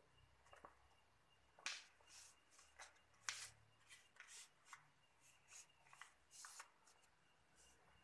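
A sheet of origami paper rustling and crinkling in the hands as it is folded and creased, in a series of short, faint crackles.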